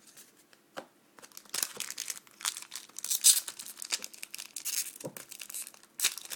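A trading card pack wrapper crinkling and tearing as it is opened, in irregular crackles that begin about a second in.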